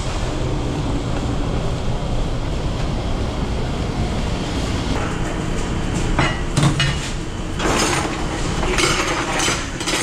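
A steady machine rumble, then from about five seconds in, ceramic plates and dishes clattering as they are picked up off a stainless steel dish table and dropped into a plastic bus tub, with several sharp knocks near the end.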